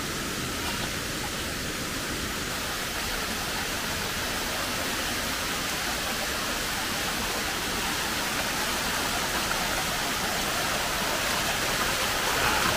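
Steady rush of falling water from a waterfall, an even hiss with no breaks, growing slightly louder near the end.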